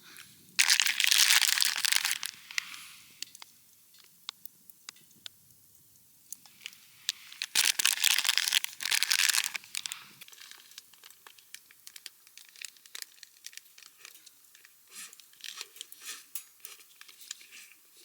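Plastic or paper wrapping crinkling in two loud bursts, one about half a second in and another about eight seconds in, followed by a run of small clicks and taps.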